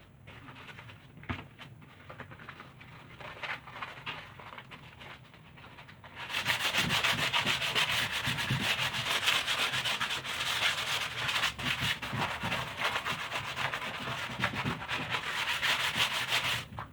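Sanding on wooden furniture: light scratching at first, then from about six seconds in a loud, steady, scratchy rubbing that stops abruptly just before the end.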